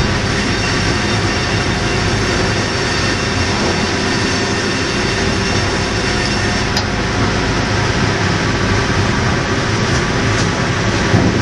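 Sawmill saw-line machinery running: a loud, continuous mechanical din from the log carriage, rollers and saws, with a few short sharp clicks.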